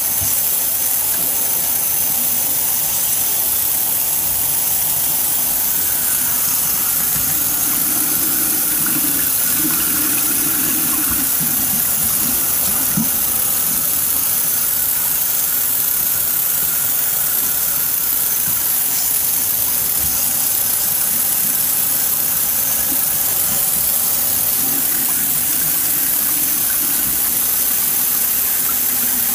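Bathroom sink faucet running steadily, the water splashing over hair and into the basin as the hair is rinsed under the tap.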